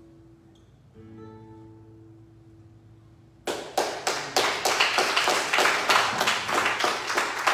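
The last plucked-string notes of a prelude ring out and fade. About three and a half seconds in, loud hand clapping starts, about three claps a second.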